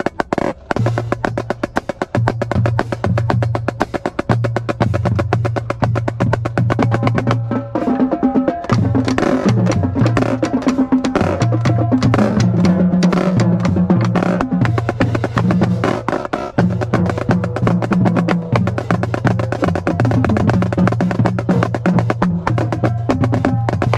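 Marching drumline playing a cadence: rapid, crisp marching snare drum strokes over sustained low bass notes that step up and down in pitch.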